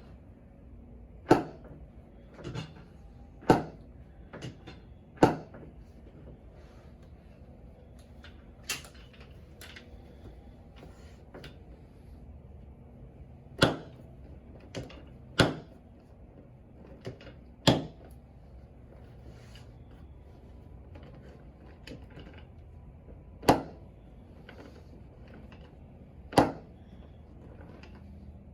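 Chiropractic adjusting instrument firing during an adjustment of the legs and knee: sharp single clicks a few seconds apart and irregularly spaced, about ten in all, with a few fainter ones between.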